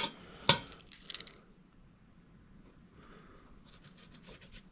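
A few sharp taps in the first second, then quick scratchy strokes of a marking tool being drawn across a plate to trace a cut line, in a rapid run about three and a half seconds in.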